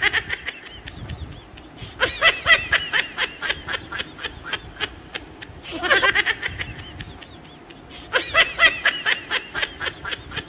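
Dubbed-in laugh track: bouts of high-pitched laughter, each a rapid string of ha-ha pulses, with short pauses between them.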